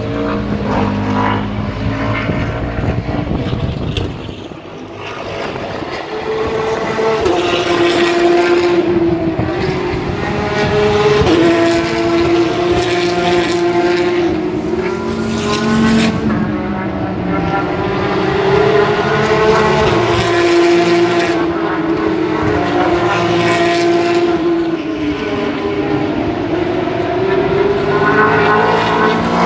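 Racing car engines at high revs as several cars pass one after another, the engine note rising and falling with stepped changes in pitch as they shift gears.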